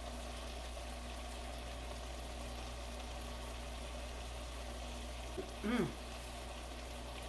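Pan of southern fried cabbage and andouille sausage simmering on the stove, a steady low sizzle with a faint hum under it. About six seconds in comes a short falling vocal hum.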